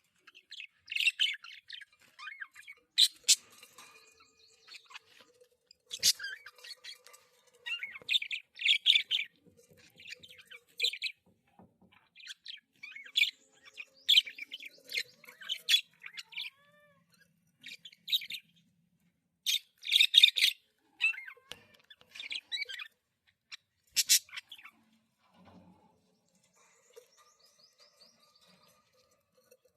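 Pet budgerigar chirping and squawking in short, sharp bursts, with quick clicks among the calls; the calls thin out and fall quiet near the end.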